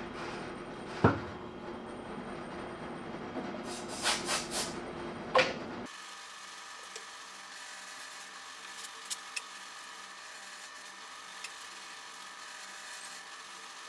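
Hand tool work on wood at a bench: a sharp knock about a second in, then a few quick strikes and scrapes around four to five seconds, over a steady shop-machine drone. The drone cuts off abruptly about six seconds in, leaving a faint hum and a couple of light clicks.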